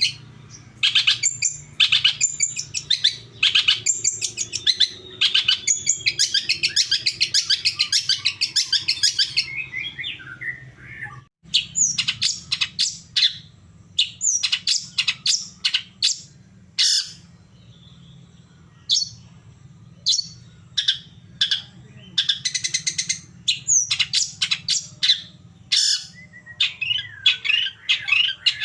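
Long-tailed shrike (cendet) singing: quick runs of sharp chirps broken by fast chattering trills, with a brief break a little after ten seconds in.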